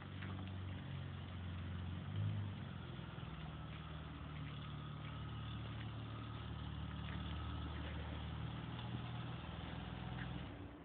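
BMW car engine idling steadily, with a brief blip of the throttle about two seconds in. The engine sound stops near the end.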